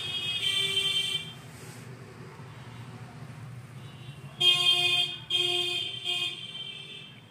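A horn honking: one long honk at the start, then three more honks in quick succession about four seconds in, over a steady low hum.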